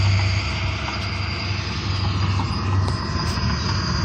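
Steady low drone of a running engine that throbs slightly, under an even hiss with a thin constant high whine.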